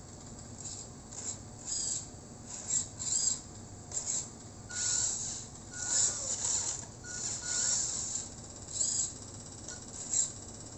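Small electric motors or servos of a radio-controlled truck whirring in about a dozen short bursts as the transmitter controls are worked. Some bursts sweep up and down in pitch, and the longest come in the middle.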